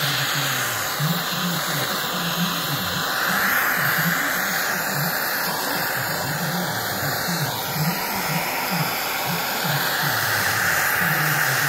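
Handheld propane torch burning with a steady hissing rush, its flame played over an aluminium engine crankcase to heat it.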